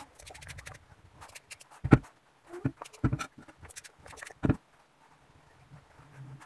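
Hands rubbing and working through twisted hair close to the microphone: scratchy crackling and rustling, with several dull thumps between about two and four and a half seconds in.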